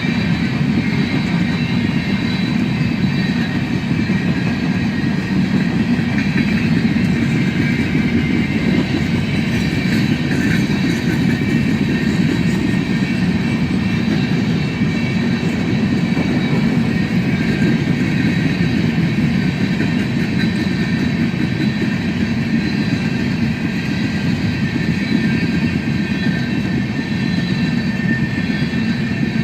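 Coal train's freight cars rolling past, a steady rumble of steel wheels on rails with thin high squealing tones over it.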